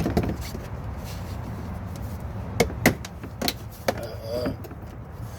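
Stiff plastic wheel-well liner being worked back into place: a sharp plastic click at the start, then several quick clicks and knocks about two and a half to four seconds in, over a steady low hum.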